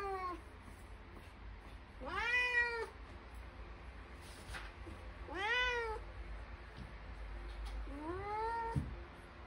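Grey long-haired Persian cat meowing at a closed door, wanting to be let outside: three drawn-out meows about three seconds apart, each rising then falling in pitch, the last a little softer.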